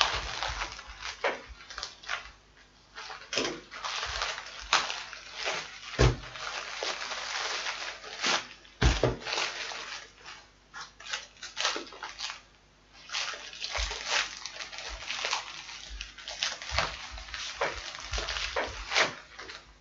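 Plastic mailer bag and bubble-wrap packaging crinkling and rustling as a package is torn open and unwrapped by hand, with irregular sharp crackles throughout.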